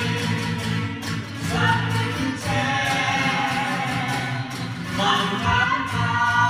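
A Vietnamese song: singing voices over instrumental backing, with long held notes.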